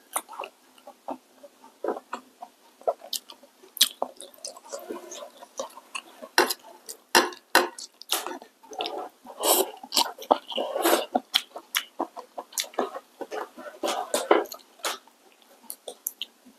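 A person eating hot pot close to the microphone: wet chewing and mouth noises, with frequent short clicks of chopsticks against a bowl and the pot, busiest about nine to eleven seconds in.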